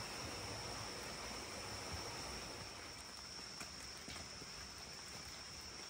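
Faint outdoor ambience: a steady high-pitched insect drone over an even hiss, with a few faint clicks in the second half.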